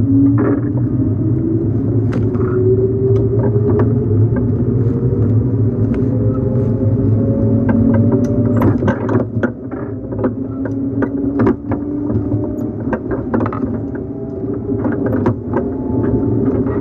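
Running sound of a JNR 115 series electric train's MT54 traction motors heard from inside the motor car: a steady low hum under a motor whine that climbs steadily in pitch for about eight seconds as the train gathers speed. After that the whine gives way to a lower tone, with many sharp clicks and knocks from the running gear.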